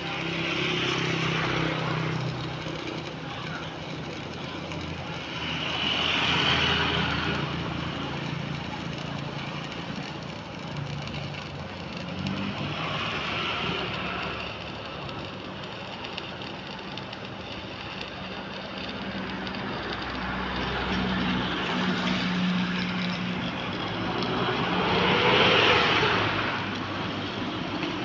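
Road vehicles passing by one after another, each swelling and fading over a couple of seconds, over a steady low mechanical hum.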